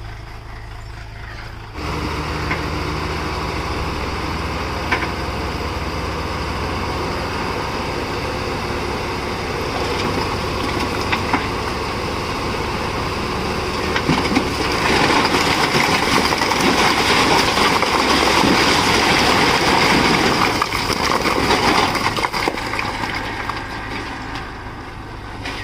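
Heavy diesel engine of a backhoe loader or truck running steadily. It steps up in level about two seconds in, grows louder and fuller about fifteen seconds in, then eases near the end, with a few sharp clicks along the way.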